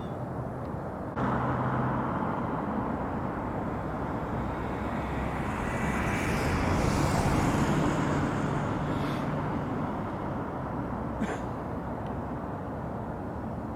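Road vehicle noise that swells to a peak about halfway through and then fades, like a car driving past, over a steady low hum. A short click comes near the end.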